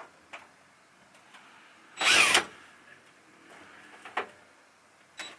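Power drill driving a screw up into a butcher block countertop in one short burst about two seconds in, its pitch rising as it spins. Light clicks and knocks from handling the tool come before and after the burst.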